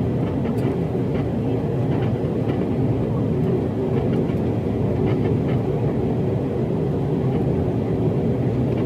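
Steady engine and airflow noise heard inside an airliner's cabin during the climb after takeoff, a low, even rumble with a faint hum and no changes.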